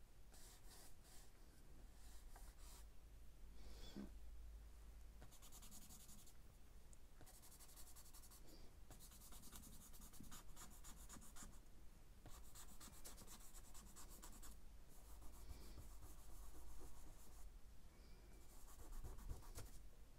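Faint scratching of a charcoal stick across drawing paper, in several spells of shading strokes a second or two long with short pauses between them.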